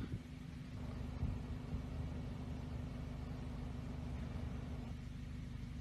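Steady low background rumble with a faint even hiss, and a soft bump about a second in.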